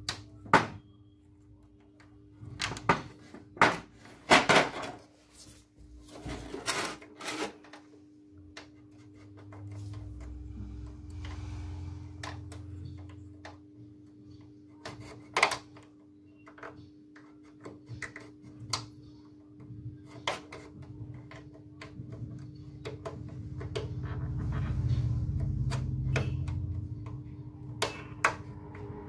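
Irregular clicks and knocks of hard plastic photocopier-cassette parts being handled, over a steady low hum. A low rumble swells up twice.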